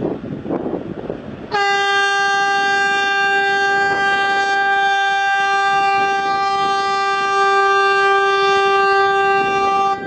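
Wind buffeting the microphone, then about a second and a half in a ship's horn sounds one long, steady blast of about eight seconds that stops abruptly near the end.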